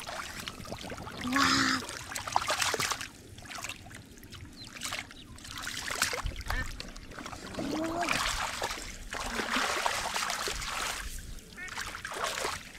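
Splashing and sloshing in shallow muddy water as hands search the mud for catfish. It comes in bursts about a second in and again from about seven to ten seconds, with a few brief low calls.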